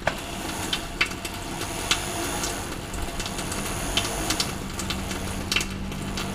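Flexible-shaft rotary tool running, its handpiece scrubbing grime off the inside of a motorcycle engine's crankcase cover under a running tap. A steady hiss of water with scattered ticks from the tool against the casing, and a low motor hum that grows stronger about halfway through.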